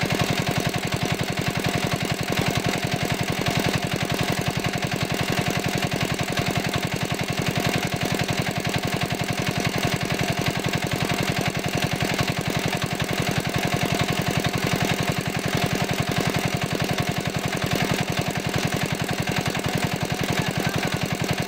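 Small engine-driven water pump running steadily at constant speed with a fast, even chugging, as it drains the pond through its hose.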